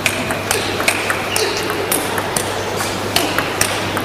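Table tennis rally: the celluloid ball clicking sharply off the bats and the table in a quick back-and-forth, two or three hits a second.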